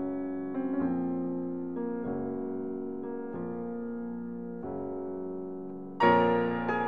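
Background piano music: slow chords that ring and fade, with a louder, brighter chord near the end.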